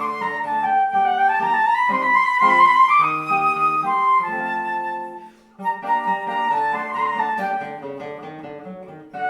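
Flute and guitar duet: the flute plays a melody over plucked guitar chords, breaking off briefly about five seconds in before both resume.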